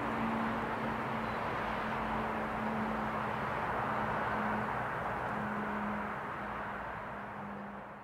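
Rooftop rotating civil-defence warning siren at the tail end of its signal: its tone has wound down to a steady low hum over a wash of outdoor noise. The whole sound fades out near the end.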